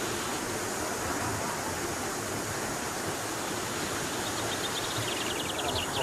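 Steady rush of a mountain stream flowing over boulders into a rock pool. Near the end there is a brief, rapid, high-pitched ticking trill.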